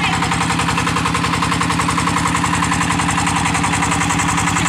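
Small engine of a portable water pump running steadily with a fast, even beat.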